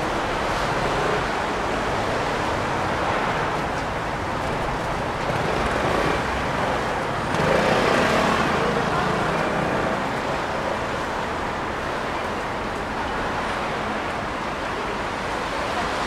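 Steady city street traffic, cars and buses running on a wet, snow-covered road, with one passing louder about halfway through.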